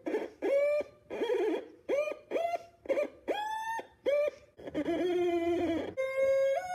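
Homemade theremin's oscillator sounding through a small speaker: about ten short electronic tones in quick succession as a clip is touched to a Play-Doh strip at different points, each touch a different pitch, lower the further the current travels through the Play-Doh. About five seconds in a lower, wavering tone is held, then steadier tones step in pitch.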